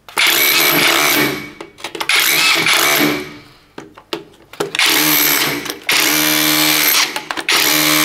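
A CAT DX21 SDS hammer drill with a chisel bit hammering out brick and plaster to cut a recess for a socket back box. It runs loud, in several bursts with short pauses between them.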